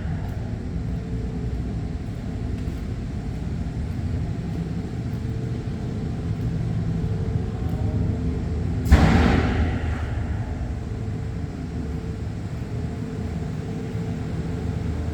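Sandblasting equipment running, a steady low rumble and hum. About nine seconds in comes a sudden loud rush of air that dies away over about a second.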